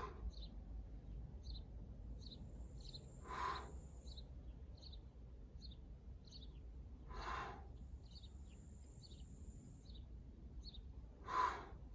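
A man breathing out hard with each pull-up on a suspension sling trainer: four short puffs about four seconds apart, the last the loudest. Birds chirp throughout in short high notes.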